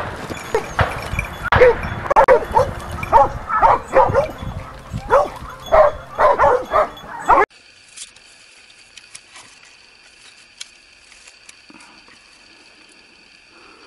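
Hunting dogs barking and yelping in rapid, excited bursts at a wild boar they are holding at bay. After about seven seconds it cuts off suddenly to a quiet background with a faint steady high tone and a few small ticks.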